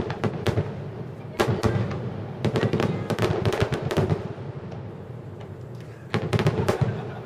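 Aerial firework shells bursting in rapid volleys of sharp bangs. Clusters of bursts come near the start, around one and a half seconds, between two and a half and three and a half seconds, and again after six seconds, with a lull between.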